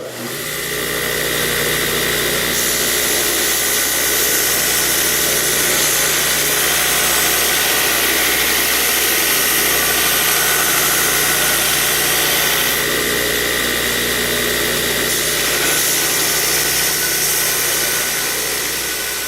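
2x72 belt grinder running, grinding a Damascus steel knife blank down to its scribe line: a steady, loud hiss with a constant whine.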